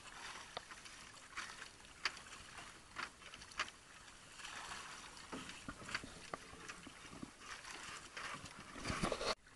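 Sea water slapping and splashing against the hull and bamboo outriggers of a small outrigger fishing boat, with scattered sharp knocks and splashes. It swells louder near the end, then cuts off suddenly.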